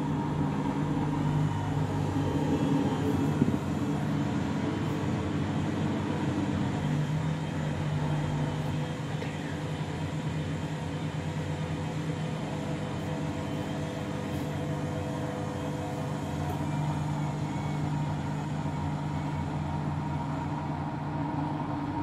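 Front-loading washing machine running, a steady motor hum with a faint wavering whine as the drum turns the wet load.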